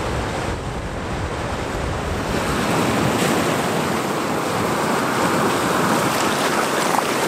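Small sea waves breaking on sloping, seaweed-covered rock and washing back: a steady rush of surf that swells a little about halfway through.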